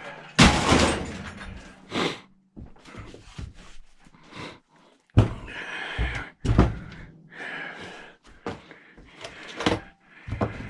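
Parts being handled and set down on a workbench: a loud bang about half a second in, then a series of knocks and clunks.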